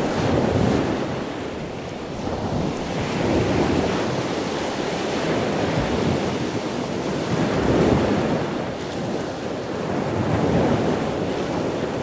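Ocean surf: a steady rushing wash of waves that swells and eases every few seconds.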